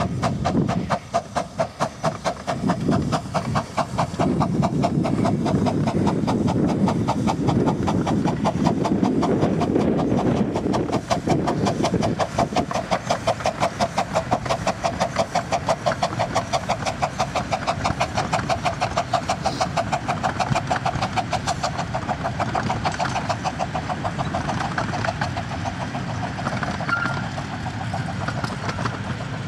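A 15-inch-gauge steam locomotive works a passenger train past, chuffing in rapid, even exhaust beats. The beats ease off a little as the train draws away near the end.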